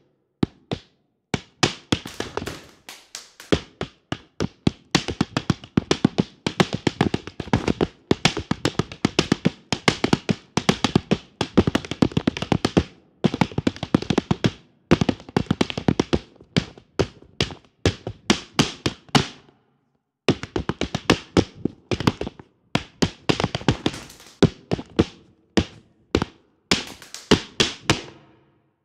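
Rapid flamenco footwork (zapateado): flamenco shoes' heels and soles striking a dance floor in fast rhythmic runs of sharp taps, with a short pause about two-thirds of the way through.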